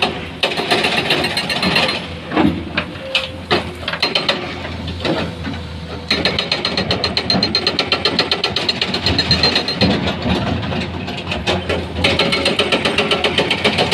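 Komatsu hydraulic excavator working, its diesel engine running with a fast, even clatter. The clatter eases for a few seconds in the middle, leaving a handful of separate knocks, then picks up again.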